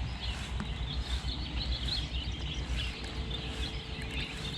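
Outdoor background noise: a steady low rumble with faint, scattered bird chirps.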